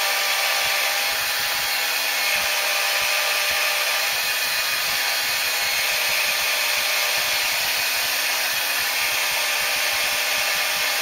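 Cordless drill running steadily, spinning a Briggs & Stratton 5 hp engine valve that is held in a coarse Scotch-Brite pad, the motor's whine mixed with the scrubbing of the pad against the valve head. The pad is cleaning and polishing carbon and scoring off the valve.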